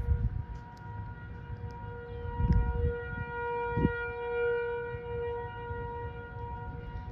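Federal Signal electromechanical outdoor warning sirens (508-128 and 2001-SRN) sounding the steady alert tone of a siren test. The pitch holds steady while the sound swells and fades as the rotating horns sweep round, loudest about four and a half seconds in. A low rumble runs underneath, with two louder low bursts about two and a half and four seconds in.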